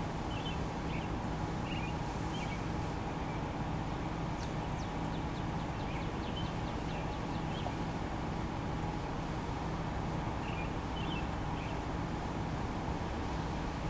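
A steady engine hum with birds chirping now and then over it, and a quick run of rapid high notes about five seconds in.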